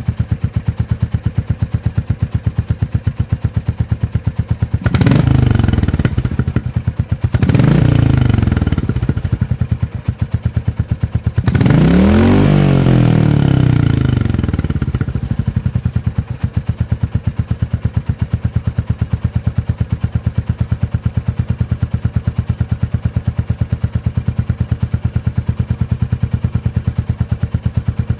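Royal Enfield Classic 350's single-cylinder engine, fitted with a DNA aftermarket air filter, idling with an even thump. It is revved briefly twice, about five and seven seconds in, then revved higher and longer about eleven seconds in, each time falling back to idle.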